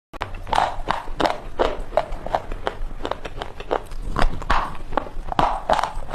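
Brittle chalk chips crunching and crumbling, a sharp crunch about three times a second.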